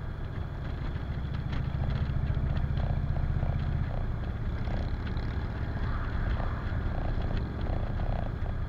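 Cruiser motorcycle's engine running steadily at road speed, heard from the rider's seat; its low hum eases slightly about four seconds in.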